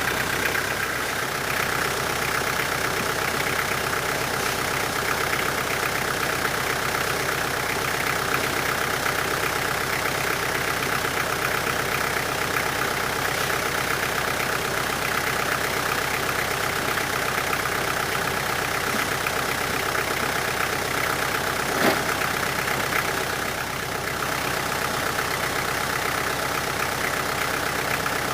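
Sawmill engine running steadily, with a single sharp knock about three-quarters of the way through.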